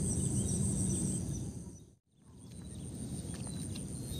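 Insects trilling steadily at a high pitch over a low background rumble; the sound fades out to silence for a moment about two seconds in, then fades back in.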